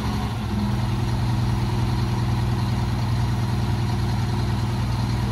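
A motor or engine running steadily with a low hum, its tone shifting slightly about half a second in.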